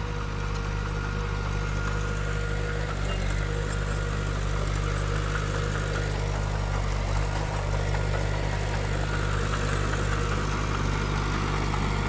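Bulldozer's diesel engine running steadily at an even speed.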